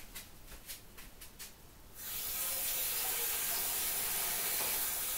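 Tap water running into a saucepan, a steady hiss that starts about two seconds in, after a few faint knocks.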